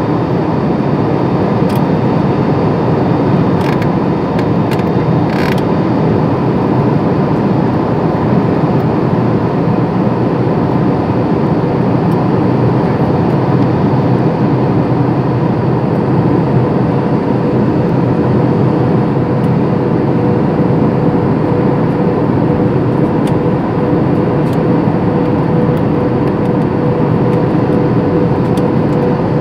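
Steady airliner cabin noise: jet engines and rushing air heard from inside the cabin. A steady hum runs through it and grows stronger near the end. A few faint clicks come in the first few seconds.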